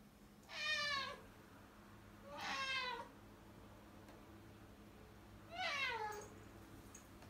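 Orange tabby cat meowing three times, begging for a treat. The meows are a second or so apart, each under a second long, and the last one falls in pitch.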